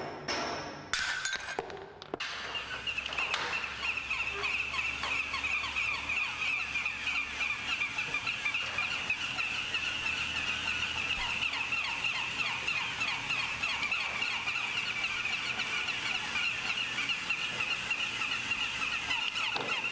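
A row of battery-operated toy poodles yapping and whirring together: a steady high-pitched chatter of many overlapping squeaky yaps and ticks. It starts about two seconds in, after a couple of sharp knocks.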